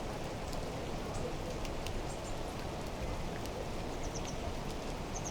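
Steady rushing and splashing of water, with a few faint, short high chirps over it.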